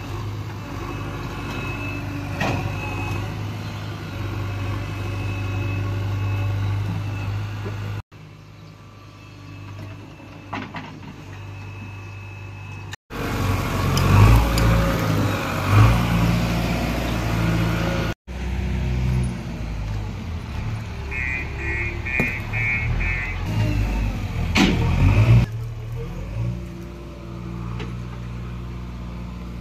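JCB 3DX backhoe loader's diesel engine running and revving as it works its hydraulic digging arm and loader, with occasional clanks. A short run of repeated electronic beeps comes about two-thirds through.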